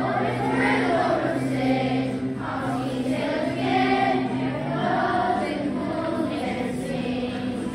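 A group of children singing together over a steady musical backing.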